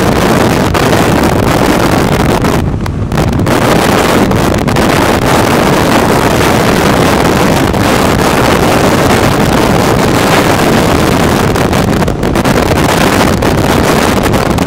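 Loud wind buffeting the microphone of a camera moving fast along a road, with road and vehicle noise underneath. The rush eases briefly about three seconds in.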